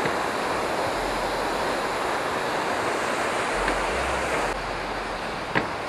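Fast, forceful mountain stream rushing steadily down a rocky cascade.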